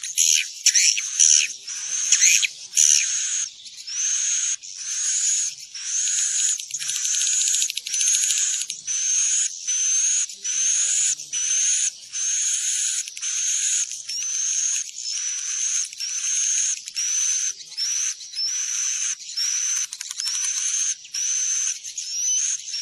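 Swiftlet (walet) roosting call: a steady string of buzzy, chattering chirps, each ending in a high rising whistle, about one and a half a second, quicker and louder in the first few seconds.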